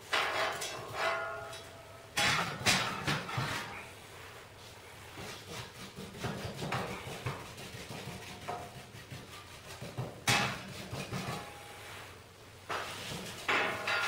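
Metal stove scoop and brush scraping and knocking inside the firebox of a Koza K9 wood stove as ash is swept out and pushed through the grate, with several sharp metallic clanks that ring briefly.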